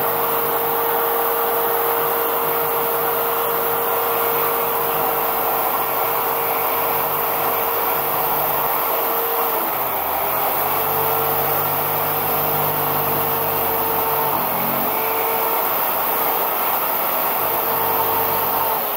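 Jigsaw running steadily with its blade cutting into blue foam board. Its motor tone sags briefly about halfway through and again near three-quarters, as the blade bites into the foam.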